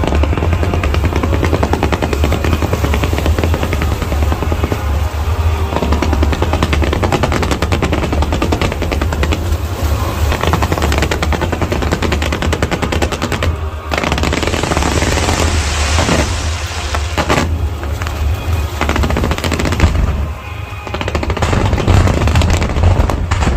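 Fireworks display: aerial shells bursting in a dense, rapid string of pops and crackles like rapid gunfire, over a low rumble, with a few short pauses in the second half.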